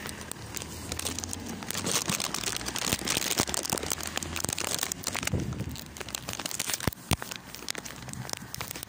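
Plastic candy bag crinkling and rustling close to the phone's microphone, with many small sharp clicks.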